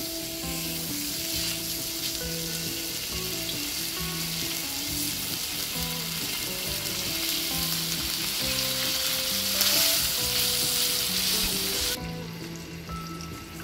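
Pork chops sizzling on a hot round griddle pan, a steady frying hiss. The sizzle drops away near the end.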